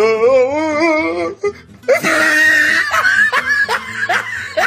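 Men laughing: a long wavering laugh at the start, then, after a short break, a run of short rising 'ha' bursts.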